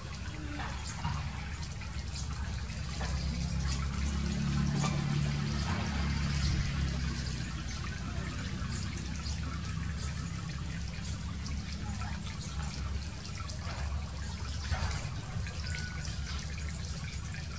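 Shallow water trickling and lapping in a crowded frog pen, with scattered small splashes as the frogs move about, over a steady low rumble.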